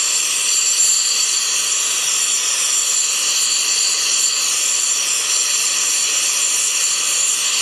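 Handheld gas torch flame hissing steadily as it heats a cast iron gear toward brazing temperature.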